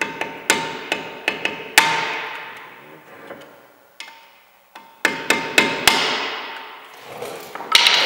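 A hammer striking a screwdriver seated in a brake disc's seized cross-head retaining screw, in two quick runs of several blows, each dying away in a metallic ring from the disc. The blows are shock-loosening the rusted screw so it can be turned out.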